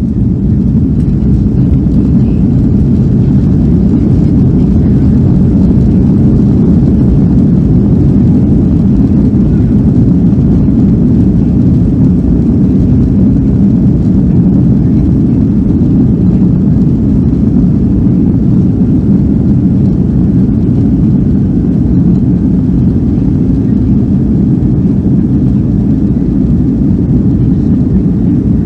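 Boeing 757-200 cabin noise at takeoff thrust: a loud, steady low rumble of the jet engines and airflow, heard from inside the cabin.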